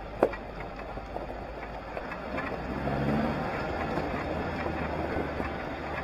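A 4x4 driving along a rough gravel track: engine running under a steady rumble of tyres and knocks and rattles from the body. One sharp knock comes about a quarter second in, and the engine note comes up and gets louder from about halfway.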